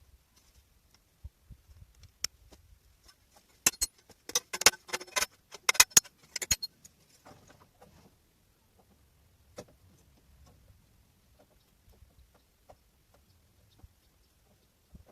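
Metal objects clinking: a quick run of about a dozen sharp metallic clicks over some three seconds in the middle, with a few single clicks before and after.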